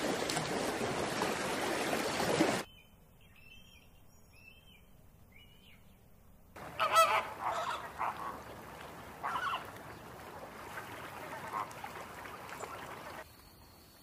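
Flock of flamingos honking, goose-like calls in repeated bursts through the second half. They follow a loud rushing noise in the first couple of seconds and a quiet stretch with a few faint high chirps.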